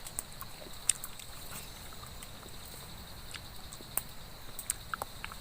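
Scattered small clicks and smacks of someone eating, the sharpest about a second in and about four seconds in, over a faint steady high-pitched hum.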